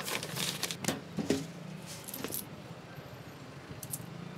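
Paper rustling and crinkling in short bursts as a letter is handled and drawn from its envelope, over a steady low background hum.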